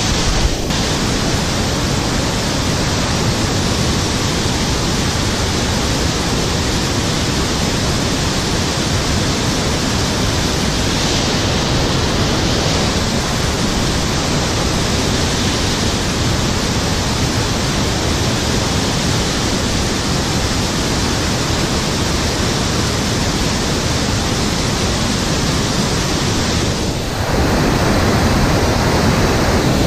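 Fast-flowing river water rushing, a loud steady noise. It dips briefly and then swells a little louder about four-fifths of the way through.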